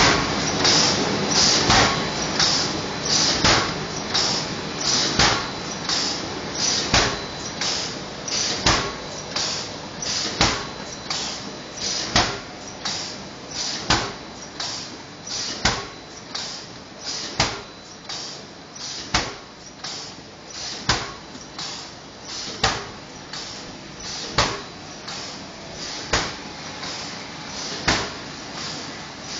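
Disposable plastic cup making machine running through its cycle, a loud clack about every 1.7 seconds with lighter clicks between, over a steady mechanical hiss.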